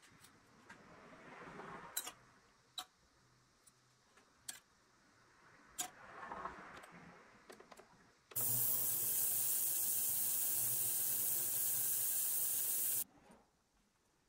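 Ultrasonic cleaner running in a degreaser bath: a loud, steady hiss over a low hum, starting about eight seconds in and cutting off suddenly some four and a half seconds later. Before it, a few light metal clinks as small parts are set in the steel tank.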